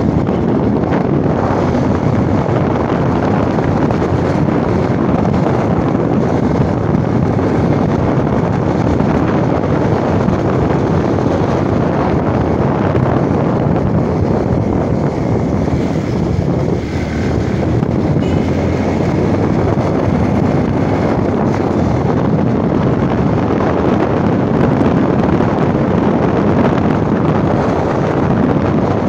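Steady rush of wind buffeting the microphone of a moving motorcycle, with the bike's engine running beneath it.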